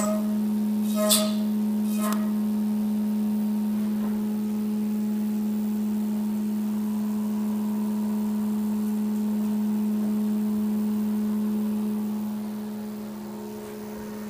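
Haas VF4SS vertical machining center rough-milling aluminum with a 5/8-inch three-flute carbide endmill on a high-speed waveform toolpath: a loud, steady cutting tone. Three short ringing clinks come in the first two seconds, and the sound drops in level near the end.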